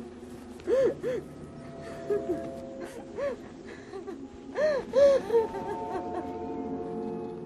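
Horror film soundtrack of long held notes, with short cries that rise and fall laid over them. Two cries come close together about a second in, one a little after three seconds, and a louder cluster of three around five seconds.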